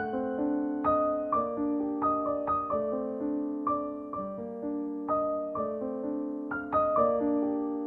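Background music: a gentle piano melody with accompanying chords, notes struck and left to ring in an even rhythm.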